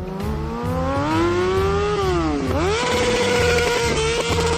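Motorcycle engine revving hard: its note climbs, drops sharply about two and a half seconds in, then rises again and holds at a steady high pitch with small stutters, as when held on the rev limiter.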